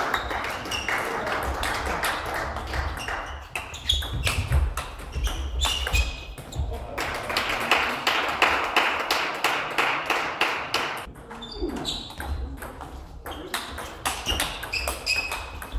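Table tennis ball clicking repeatedly off the rackets and the table during rallies, each hit a short sharp tick with a light ping.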